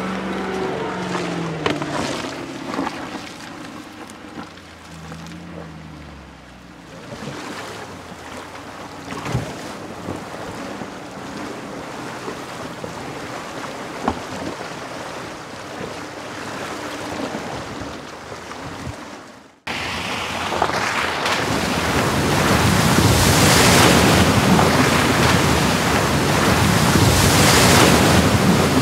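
A Land Rover Defender's supercharged V8 engine, its pitch rising and falling, then water rushing and splashing around the vehicle as it wades through a stream. About two-thirds in there is a sudden cut to a loud, steady rush of spray as it drives fast through deep water.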